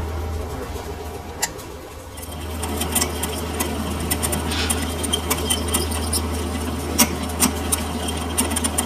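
Lathe running with a steady low motor hum that dips briefly near the start and picks up again about two seconds in, with scattered sharp metallic clicks and knocks from the work.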